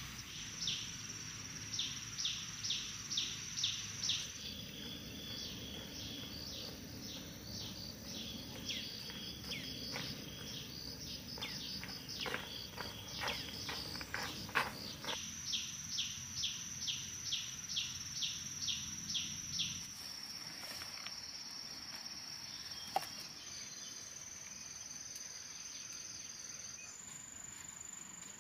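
Insects chirping: a steady high-pitched drone with runs of sharp repeated chirps, about two a second, near the start and again past the middle. There is a single sharp click a little after two-thirds of the way through.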